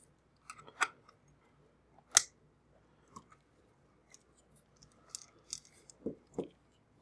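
Scattered small clicks and taps of hands handling clip leads and a model locomotive while hooking up a power supply, with one sharp click about two seconds in, a cluster of light clicks later on and two soft knocks near the end.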